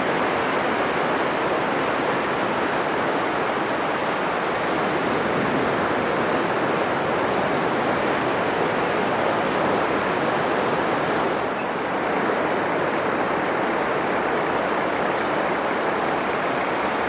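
Atlantic Ocean surf breaking on a sandy beach: a steady, loud wash of crashing and foaming waves, easing off slightly for a moment about two-thirds of the way through.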